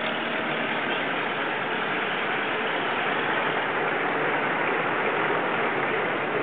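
Steady rushing noise of road traffic heard from a moving vehicle: tyre and engine noise mixed with wind rush, even and unbroken.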